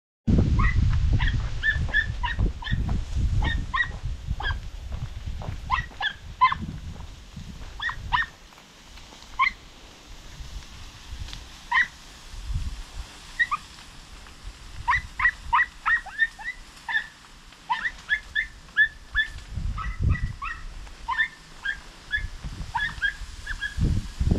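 Podenco puppies giving short, high-pitched yips again and again, over a low rumble of wind on the microphone.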